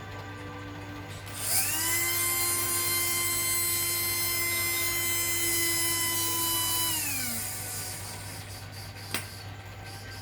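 Electric hand drill, its motor freshly rewound, switched on: it spins up with a rising whine about a second in, runs at steady full speed for about five seconds, then is released and winds down with a falling whine. A single sharp click near the end.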